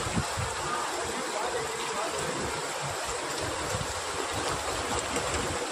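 Floodwater rushing steadily, an even rush with an uneven low rumble underneath.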